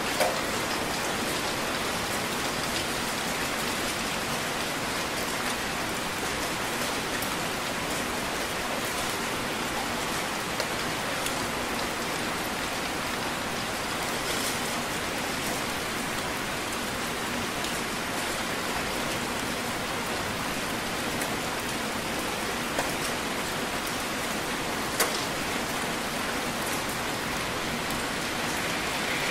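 Heavy rain falling steadily, a continuous even hiss of drops, with a few sharper, louder drop hits now and then.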